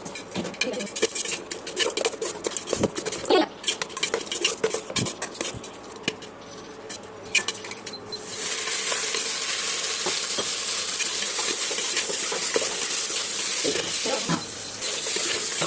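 A utensil clinking and scraping in a pan or bowl, with scattered knocks, then about eight seconds in a loud, steady sizzle starts as chicken lollipops begin frying.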